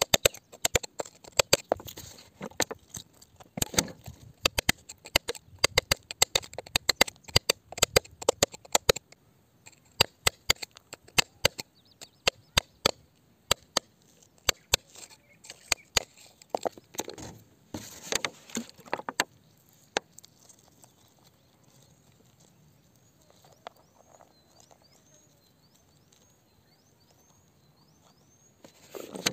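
A wooden stick scraping and tapping in wet gravel and rock, a fast run of sharp clicks that thins out after about nine seconds, with a few longer scrapes later on. Near the end it goes quieter and a bird chirps several times.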